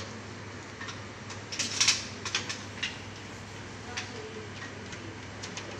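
A quick run of sharp clicks and clatters, densest about one and a half to two seconds in, with a few single ticks later, from hands working on a wall-mounted air conditioner's indoor unit. A steady low hum runs underneath.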